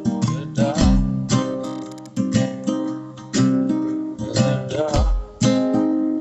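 Takamine acoustic guitar strumming chords in a steady rhythm, the notes ringing between strums, with no voice: an instrumental passage of a folk song.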